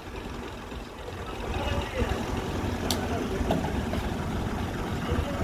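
Engine idling, a low steady rumble, with one sharp metallic click about three seconds in.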